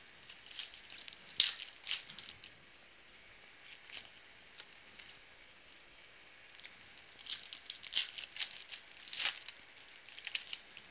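Foil trading-card pack wrappers crinkling and crackling as they are handled. The crackles come in clusters, about a second in and again from about seven to ten seconds in.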